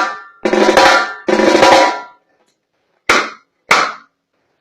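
Snare drum tuned for a reggae sound, played in three short rolls in quick succession, then two shorter strokes after a pause. Each carries a clear ringing tone.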